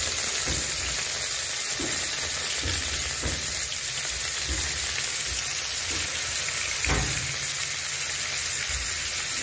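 Marinated mackerel sizzling as it shallow-fries in hot oil in a nonstick pan: a steady hiss with a few soft knocks, the clearest about seven seconds in.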